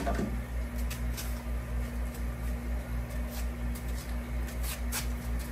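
A steady low electrical hum pulsing about four times a second, with a few faint soft ticks now and then, typical of water dripping from an acclimation airline into a bucket.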